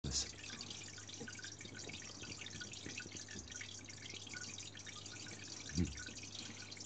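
Aquarium water filter running: a steady dripping trickle of water over a low motor hum, with one low thump near the end.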